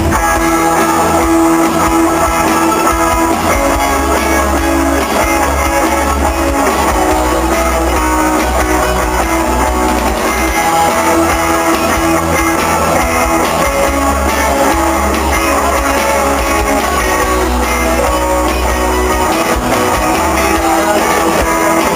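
Rock music: a band playing with guitars and a steady bass, with no singing.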